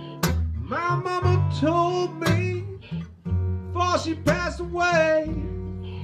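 Slow blues intro on acoustic guitar over the low, held notes of a washtub bass, with a lead melody that bends up and down in pitch.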